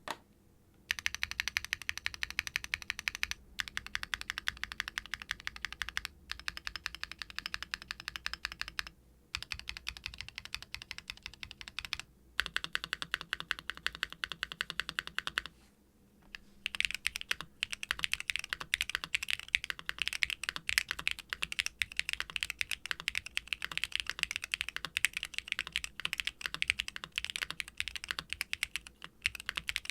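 Typing on a custom aluminum-cased Hex80 mechanical keyboard with Gateron Orchid HE linear switches (all-POM housings and stems, light 30 g springs), a carbon fiber plate, no case foam and GMK double-shot ABS keycaps. It is a steady clatter of keystrokes, broken by short pauses every few seconds and busier in the second half, with a bottom-out sound that is softer than on typical nylon-housed switches.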